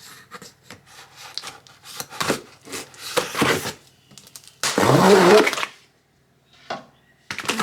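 A cardboard shipping box being opened by hand: irregular scraping, rubbing and tearing of cardboard and packing tape. One louder, longer scrape comes about five seconds in.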